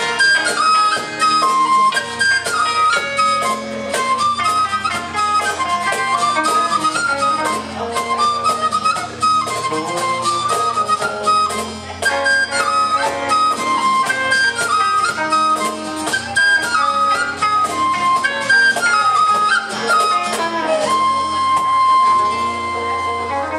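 Live folk band playing a fast pach-pi dance tune: a whistle carries a quick melody over strummed acoustic and electric guitars, a bass line and a steady percussive beat. The tune ends on a long held whistle note near the end.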